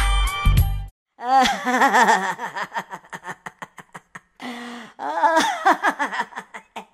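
Cartoon gorilla character laughing in two long bouts, each starting loud and trailing off in quick, fading pulses, with a short held note between them. Background music cuts off about a second in.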